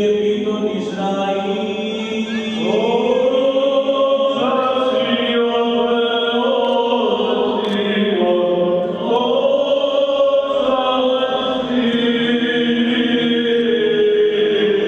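Greek Orthodox Byzantine chant: a slow vocal line of long held notes that slide up and down, over a steady low sustained note.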